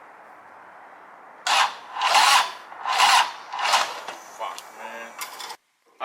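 Motorcycle electric starter cranking the engine, a steady rasp and then a run of loud rasping strokes about every three-quarters of a second that fade toward the end. Slow cranking on a battery just recharged after failed tries.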